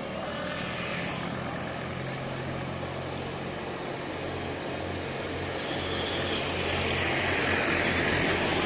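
Roadside traffic noise, with the engines of passing motorcycles, auto-rickshaws and trucks. A low engine drone grows louder over the last few seconds as a tractor pulling a loaded trailer comes near.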